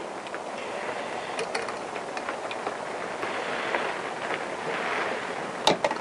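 Small tweezers clicking and scraping faintly inside the plastic fuel tank of a petrol chainsaw, fishing for the fuel pickup filter, with one sharper click near the end. A steady hiss of background noise runs underneath.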